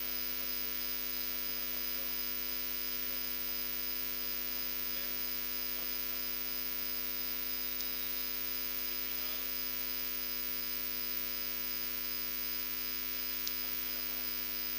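Steady electrical hum and buzz made of several fixed tones, unchanging throughout, with no game or crowd sound.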